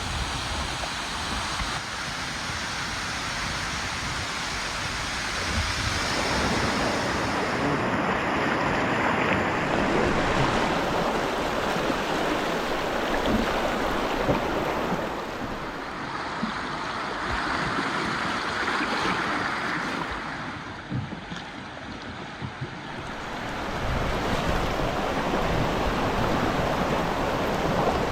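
Rushing water with wind on the microphone, a steady hiss that swells and eases, dropping off for a few seconds past the middle.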